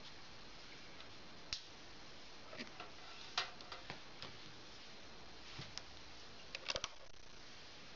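Faint, irregular small clicks and ticks over a low steady hiss: a single click about a second and a half in, a scattering of them in the middle, and a quick run of about four near the end.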